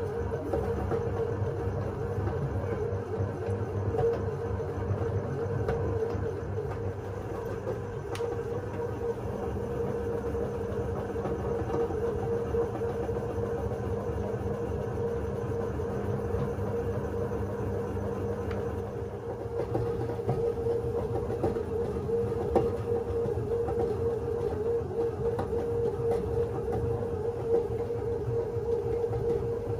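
Breville Custom Loaf Pro bread maker kneading dough on its dough cycle: the kneading motor runs with a steady hum over a low, uneven rumble as the paddle works the dough ball around the pan. The lower part of the hum drops away about two-thirds of the way through.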